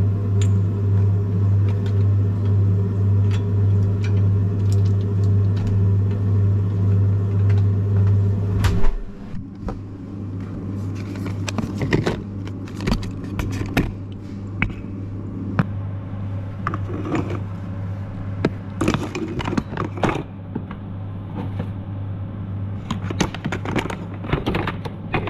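Steady low refrigerator hum, loud at first and dropping to a quieter level about nine seconds in. Over the quieter part come repeated clinks and knocks as glass medicine bottles and metal veterinary instruments are handled and packed into a box.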